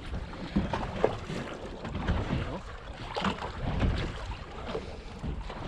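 Wind buffeting the microphone on a small fishing boat at sea, a low rumbling haze, with a couple of sharp knocks about half a second and a second in.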